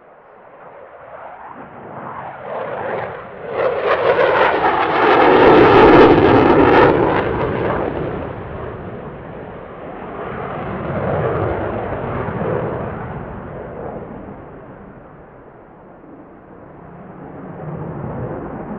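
Eurofighter Typhoon's twin jet engines during a display pass: the roar builds, peaks about five to six seconds in and fades, then swells again more weakly around eleven seconds.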